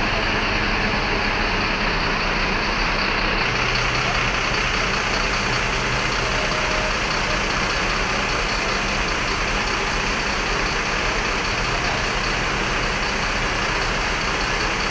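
Large diesel coach engine idling steadily with a low, even rumble.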